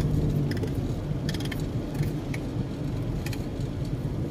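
Steady low road and engine rumble inside a moving car's cabin, with a few light clicks and rustles scattered through it.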